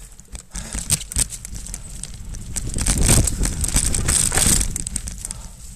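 Mountain bike rolling over a leaf-covered dirt trail: tyres crunching through dry leaves over roots, with the bike clattering and clicking over the bumps. It gets louder in the middle.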